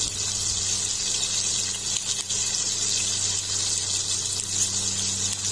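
Two whole tilapia shallow-frying in hot oil in a stainless pan, sizzling steadily with a hiss and faint crackles, over a low steady hum.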